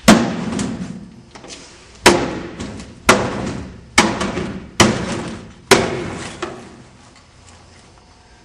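Six loud bangs, the last five about a second apart, each ringing out briefly.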